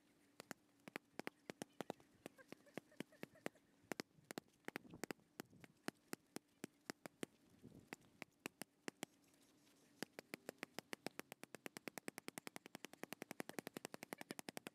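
Boxing gloves smacking focus mitts in short combinations, then a fast flurry of about six or seven punches a second from about ten seconds in.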